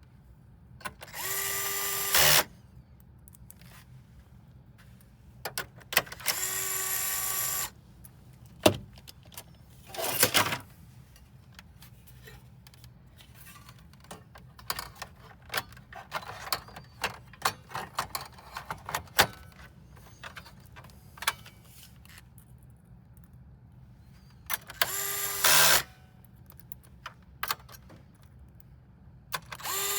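Electric screwdriver running in several short whirring runs of a second or so, driving screws, with small clicks and taps in between.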